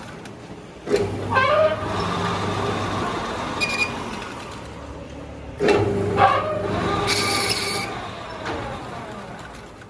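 Manual lathe starting twice, about a second in and again at about five and a half seconds, each time spinning up with a rising whine and then running down with a falling pitch; a brief high squeal rings out twice while it runs.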